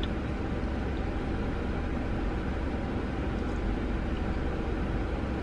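Steady low rumble of a car heard from inside the cabin, its engine running.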